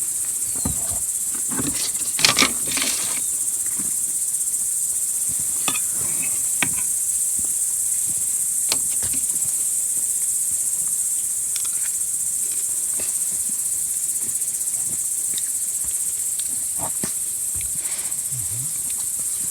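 Crickets chirping steadily in a continuous high-pitched drone, with a few scattered clicks and knocks, the loudest about two seconds in.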